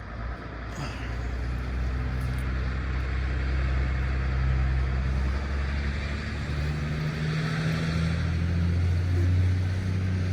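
Motor vehicle engine running steadily; its engine note shifts in pitch a few times in the second half.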